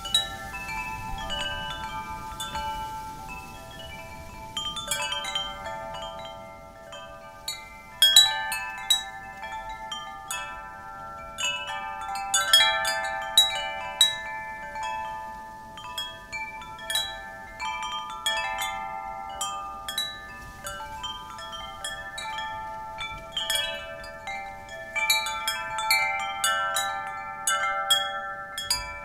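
Wind chimes being blown, struck again and again at irregular moments, with their overlapping tones ringing on, over a faint rush of wind.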